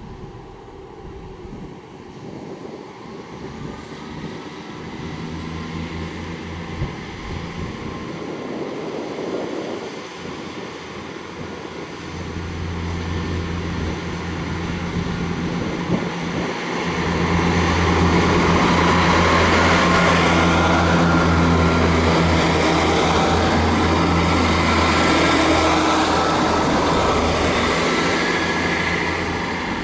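Class 158 diesel multiple unit passing close by under power, a steady low diesel engine drone with wheel and rail noise. It grows louder as the train approaches, is loudest as it goes past, and eases off near the end.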